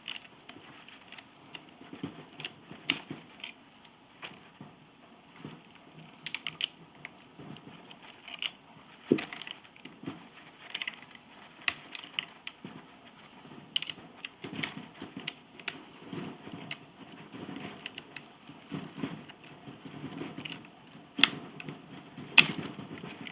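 Irregular metal clicks and taps as the bolts of a Swage-It cable-swaging tool are turned down to crimp a clip onto 1/8-inch steel cable, with a few sharper clicks scattered through. The clip is just starting to bind on the cable.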